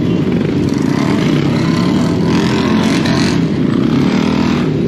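Several superbike engines idling close by in a steady low rumble, with a brief rushing noise about two seconds in.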